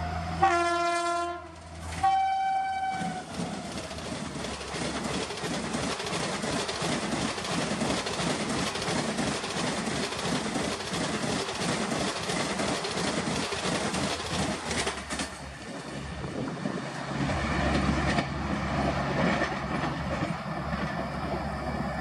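Garib Rath express train hauled by an electric locomotive passing at speed: two horn blasts in the first three seconds, then the fast, even clickety-clack of the coach wheels over the rail joints, easing into a steadier rumble in the last several seconds as the rear coaches go by.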